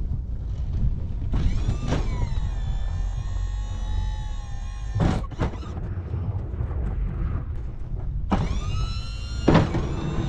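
Hydraulic whine as the Sno-Power plow's wings are swung, twice: about a second and a half in and again about eight seconds in. Each whine starts with a falling pitch and then holds steady, and sharp clunks come as the movements start and stop, the loudest near the end. Under it all runs the steady low rumble of the machine's engine.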